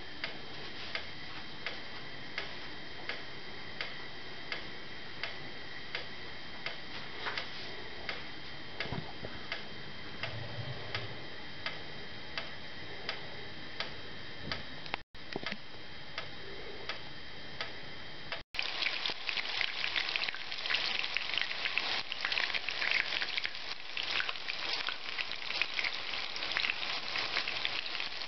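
Steady, even ticking, about two ticks a second, over a thin high steady tone. After a cut about two-thirds of the way in, chicken-mince cutlets frying in vegetable oil in a pan: a dense crackling sizzle.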